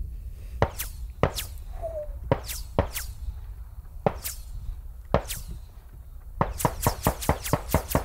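Incoming subsonic 9mm rounds fired from an MP5: a string of sharp snaps, spaced irregularly at first, then a fast run of about six a second near the end.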